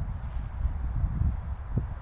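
Wind buffeting the microphone: an irregular low rumble with a few soft thumps, one of them sharper near the end.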